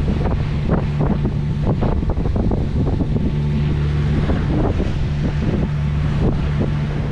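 Sailboat's inboard engine running steadily under motor-sailing, with gusty wind buffeting the microphone and chop splashing against the hull as the boat bashes into the wind and waves.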